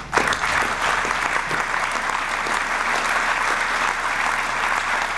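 Large audience applauding, starting suddenly and holding steady throughout.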